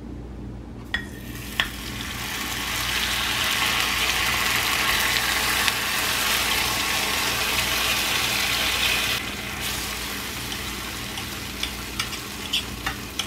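Canned sardines and their sauce sizzling as they are poured into a cast iron skillet preheated in a 500-degree oven; the sizzle builds over the first few seconds, holds strong, then eases after about nine seconds. Near the end a knife taps against the pan as the fish are cut up.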